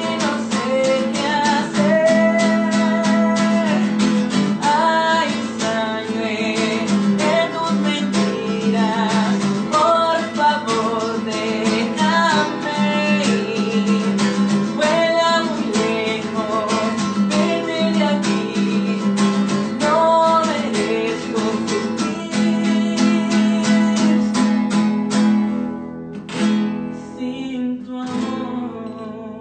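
Acoustic guitar strummed in a steady rhythm with a man singing over it. A little over 25 seconds in, the strumming stops and the playing quietens to sparser picked notes.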